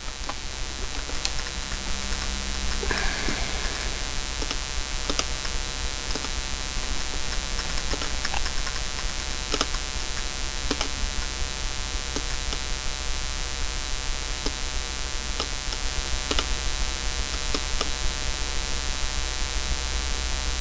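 Steady electrical buzz of mains hum, with a few faint clicks scattered through it.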